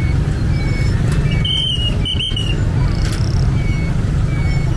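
Roadside market ambience with a steady low rumble of traffic and faint voices, and two short high whistle-like tones in quick succession about a second and a half in.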